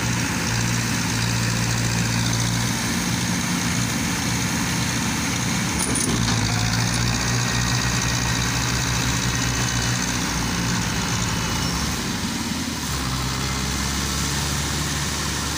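Tractor engine running steadily under a pull, its pitch shifting about six seconds in and again near thirteen seconds, as it strains to drag a tractor bogged in soft mud.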